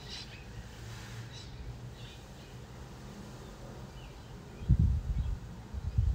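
Low steady background hum with a few faint, short bird chirps, and a low thump or rumble about 4.7 s in and again near the end.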